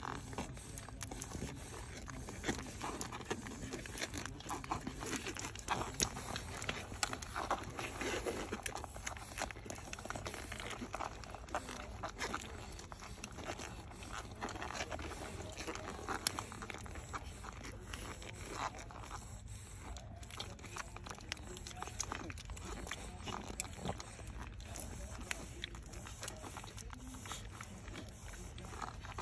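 Newborn French Bulldog puppies suckling at their mother: many small wet clicks with occasional short grunts and squeaks.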